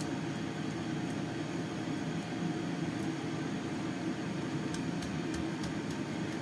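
A steady mechanical hum, like a fan or air conditioner, with a few faint clicks about five seconds in.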